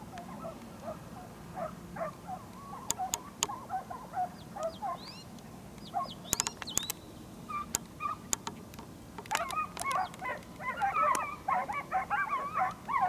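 Dogs yelping and yipping in a run of many short calls, which grow busier and higher about three quarters of the way through, with a few sharp clicks among them.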